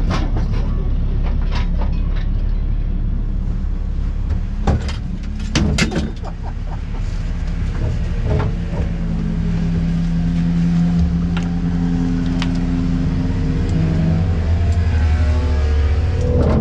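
Heavy wrecker's diesel engine running and manoeuvring just in front of the car, heard from inside the stripped race car cabin as a low rumble that becomes a steadier, stronger hum from about halfway through. A few sharp knocks and clicks from inside the cabin come in the first six seconds.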